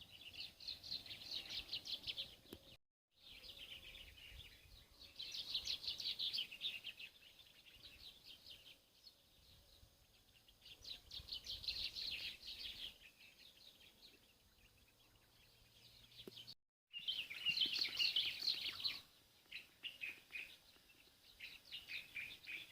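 Small songbirds singing: repeated bouts of rapid, high twittering notes, each bout lasting a second or two, broken twice by a moment of dead silence.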